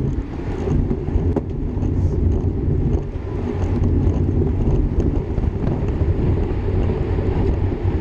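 Wind buffeting the microphone of a bicycle-mounted action camera riding at racing speed in a bunch of road cyclists. The result is a steady, loud low rumble with a few faint ticks over it.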